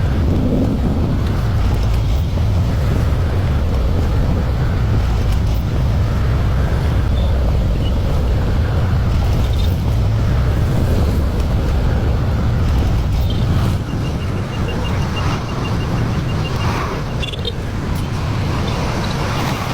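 Excavator's diesel engine running steadily with a low rumble, a little quieter about two-thirds of the way in, when a faint rapid high ticking comes in.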